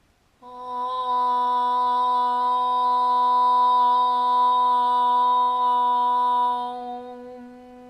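A woman chanting one long Om on a single steady pitch. The sound starts about half a second in and closes into a quieter hum near the end.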